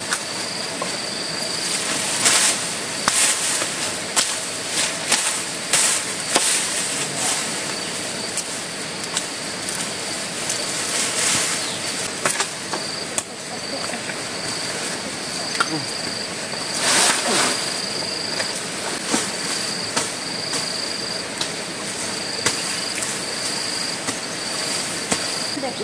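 An insect calling with a steady high-pitched trill that comes in repeated stretches of a second or so, over irregular knocks and clatter, which are the loudest sounds.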